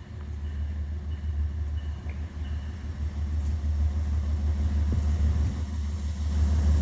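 Metro-North diesel locomotive (GE P32AC-DM) approaching with its train, a low steady rumble growing louder as it slows to stop.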